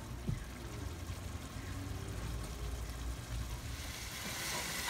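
Beef and yogurt masala frying in an aluminium pot, a steady sizzle as the yogurt's water cooks off, growing louder and brighter near the end, over a low steady hum.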